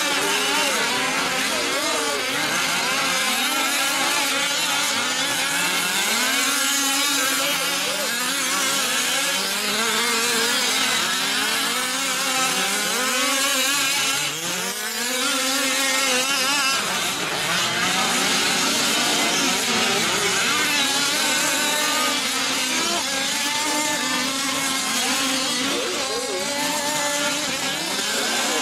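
Several 1/5-scale RC trucks' small two-stroke gas engines racing together, each revving up and falling off at its own pitch, overlapping in a constant buzzing drone.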